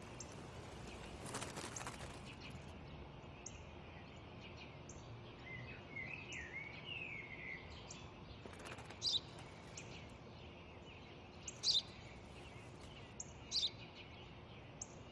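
Birds chirping over a steady hiss of outdoor background noise: a warbling phrase about six seconds in, then a few short, high chirps spaced a couple of seconds apart.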